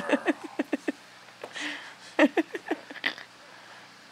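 Dog whining and yipping in excitement, eager for its turn at the jump: a quick run of short high cries in the first second and another a little after two seconds.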